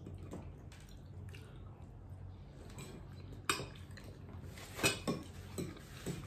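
Eating sounds: chewing a mouthful of pasta, with a few short sharp clicks of a fork against a ceramic plate, the loudest about three and a half and five seconds in.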